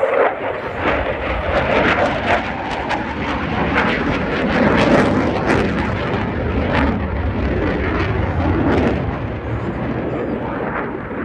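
Dassault Rafale fighter's twin Snecma M88 jet engines flying overhead: a loud, continuous jet roar with sharp crackling running through it, swelling to its loudest around the middle.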